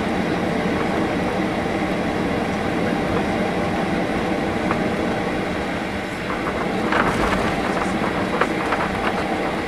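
Cabin noise of a Boeing 737-800 taxiing, heard from a window seat over the wing: the CFM56 engines' steady hum and rumble at taxi power. About two-thirds of the way through, a run of irregular clicks and knocks begins as the wheels roll over joints and lights in the taxiway pavement.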